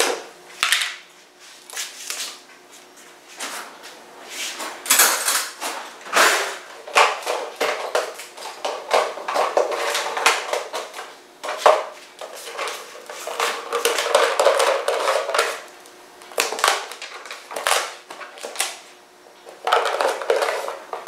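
Kitchen prep handling: a wooden spoon knocking and scraping in a stainless steel mixing bowl, with a plastic lid and containers clicking and clattering at irregular moments. Near the end, raisins are shaken from a cardboard canister into the bowl.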